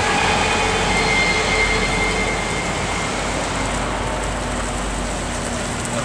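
Heavy tractor-trailer truck's diesel engine running at low speed as the loaded low-bed trailer moves off, a steady noise with a low hum underneath.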